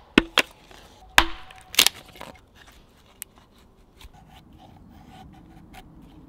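Agawa ADK26 hatchet working wood on a chopping block: several sharp knocks in the first two seconds, a couple with a brief ring, then quieter repeated scraping strokes as the blade shaves curls off a stick to make a feather stick.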